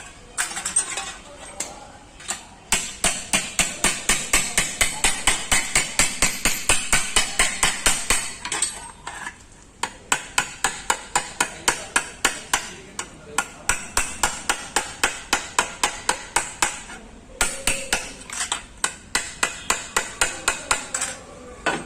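Hammer tapping out a dent in a Maruti 800's body panel: three long runs of quick metallic strikes, about five a second, with short pauses between.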